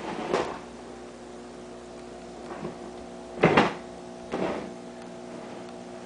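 Aquarium air pump humming steadily, with a few sudden knocks or clunks, the loudest about three and a half seconds in.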